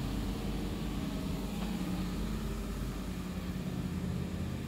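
Steady, even mechanical hum of machinery running at an industrial works with storage silos, holding one pitch throughout.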